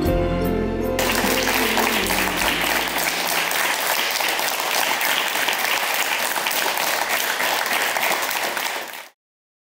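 Applause from children clapping, starting about a second in over the fading last chord of the song, then carrying on evenly until it cuts off suddenly near the end.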